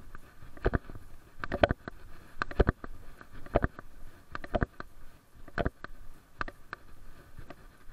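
Footsteps of a person walking on pavement: a short knock about once a second, in a steady walking rhythm.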